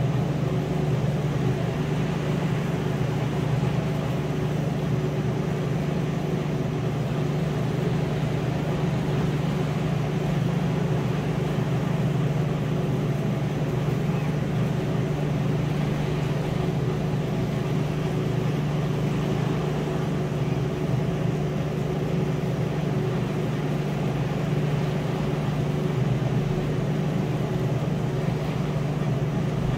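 Steady mechanical hum: a low drone with a few fixed tones over a noisy hiss, unchanging and with no rise or fall of waves.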